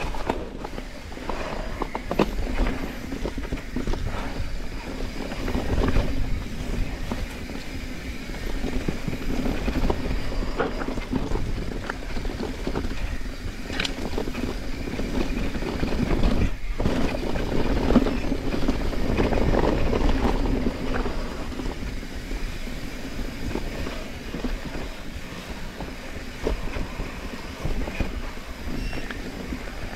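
Mountain bike rolling down a dirt forest singletrack: a steady rumble of knobby tyres on dirt and leaves, with the bike rattling and scattered clicks and knocks over roots and rocks.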